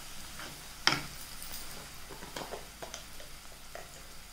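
Wooden spatula stirring spices in hot oil in a non-stick kadai, knocking against the pan a few times, the sharpest knock about a second in, over a faint sizzle.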